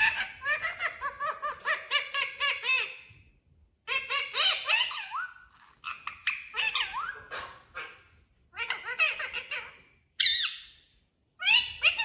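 Pet talking parrot calling and chattering in a string of short bouts, its voice sliding up and down in pitch, with brief pauses between bouts.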